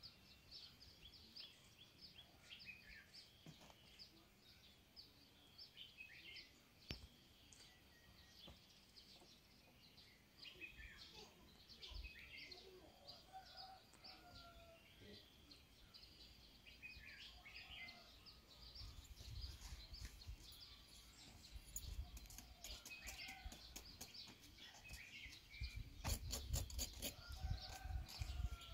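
Small birds chirping faintly and repeatedly in short high notes, with a low rumbling noise that grows in the last third.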